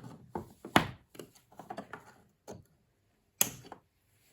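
Wire cutters snipping through the fan's wires: a run of sharp clicks and snaps with light handling knocks, the two loudest snaps just under a second in and near the end.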